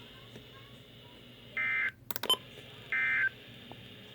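Emergency Alert System end-of-message data bursts on NOAA Weather Radio: two short bursts of the warbling digital tone, about a second and a half apart, with a brief crackle of static clicks between them. They signal the end of the severe thunderstorm warning.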